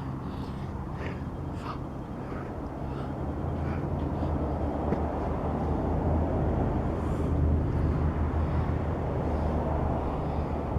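Low, steady rumble of road traffic that grows louder partway through.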